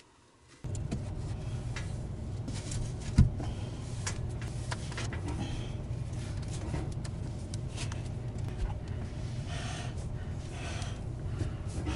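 A steady low mechanical hum, with the rustling and light knocks of someone crawling through loose blown-in attic insulation; one sharp knock about three seconds in.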